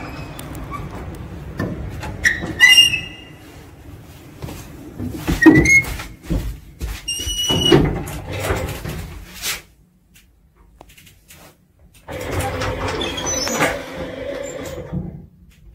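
Old lift's doors being worked: squeals and knocks during the first ten seconds as the doors are opened and shut, then about three seconds of steady whirring as the folding car doors close.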